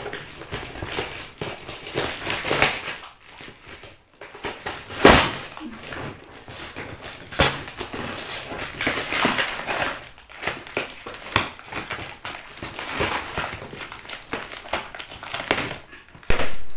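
Clear packing tape being pulled and cut off a cardboard box: irregular crinkling, scraping and tearing, with sharp knocks about five and seven seconds in.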